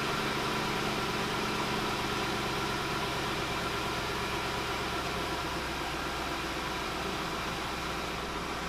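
2004 Lincoln Town Car's 4.6-litre V8 idling steadily, just after being started following the EGR tube repair.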